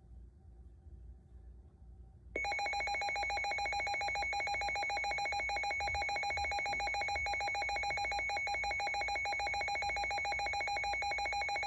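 Electronic weather-alert tone: a loud, fixed-pitch buzzing tone with a rapid even pulse that comes on suddenly about two seconds in and holds steady, sounding ahead of the next severe thunderstorm warning.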